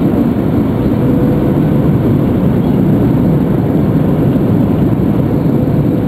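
Steady low rumble of an Airbus A320's cabin on final approach, from its IAE V2500 turbofans and the airflow over the wing, heard from inside the cabin. A faint steady tone sits above the rumble.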